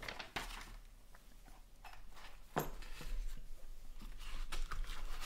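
Hands opening a zippered hard-shell carrying case and handling what is inside: scattered clicks and rustling, with a sharp click about two and a half seconds in and busier zip-and-handling noise after it.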